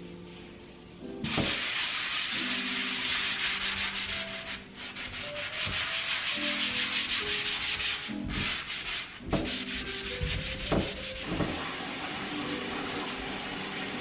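Rapid back-and-forth hand scrubbing of hard kitchen surfaces with a cleaning sponge and cloth: a scratchy hiss of many quick strokes that starts about a second in and breaks off briefly a few times, with a couple of light knocks.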